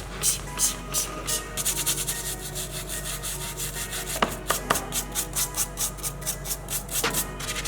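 Sandpaper rubbed back and forth by hand on a diecast model car, in short rasping strokes, about two a second at first and then faster, about four a second.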